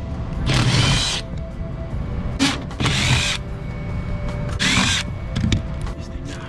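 Cordless power drill run in three short bursts, its motor pitch rising and falling with each trigger pull.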